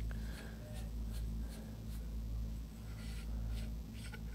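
Front cap of a rifle suppressor being unscrewed by hand: faint scratchy rubbing and small ticks of metal threads turning, over a steady low hum.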